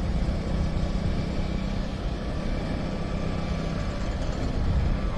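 Motorcycle engine running steadily while riding at road speed, with wind and road noise over the microphone.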